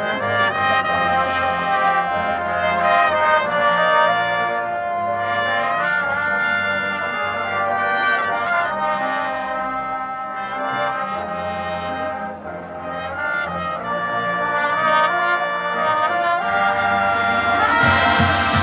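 Marching band brass section playing held chords that change every second or so. Crowd cheering breaks in near the end.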